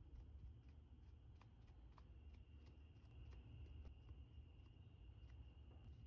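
Near silence: faint room hum with a thin high tone starting about two seconds in and a few faint scattered ticks.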